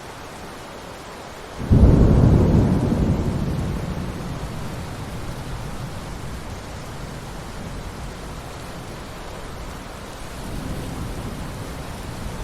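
Thunderstorm: steady rain hiss, then a sudden loud thunderclap a couple of seconds in whose low rumble dies away slowly over several seconds, with a softer roll of thunder near the end.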